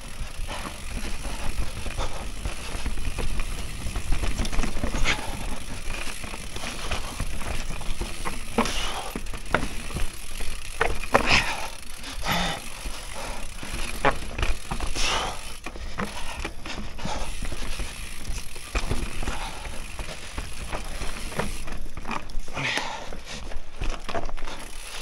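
Mountain bike descending a dirt trail: knobby tyres rolling over dirt, roots and rocks, with the bike rattling and a steady run of short knocks from the bumps.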